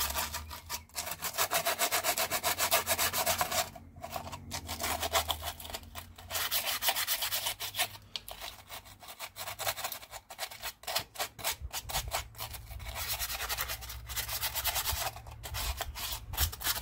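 Sandpaper rubbed by hand in quick back-and-forth strokes over the manifold face of an Opel Commodore straight-six cylinder head, with a few brief pauses. It is scouring off old gasket residue so the new intake gasket can seal.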